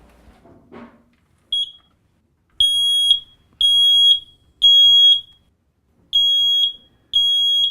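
Standard household smoke alarm being tested, sounding its loud, high-pitched evacuation signal. A brief beep comes first, then half-second beeps in a group of three, a pause, and the start of a second group of three: the temporal-three pattern.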